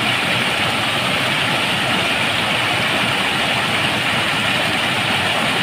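Stream water rushing steadily over a low weir, a constant white-water noise.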